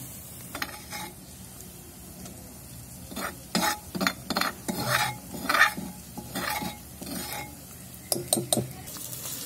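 A steel spoon scraping and clinking against a clay bowl in a run of quick strokes, as a pounded ginger, garlic and green chilli mix is scooped out into the kadhai. Underneath, onions sizzle steadily in oil in an iron kadhai.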